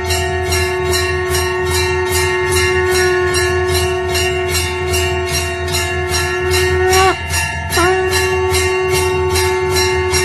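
A conch shell (shankh) blown in one long held note; about seven seconds in the note sags, breaks for a breath and scoops back up to the same pitch. Under it a temple bell is rung in quick, even strokes, about four a second, as at an aarti.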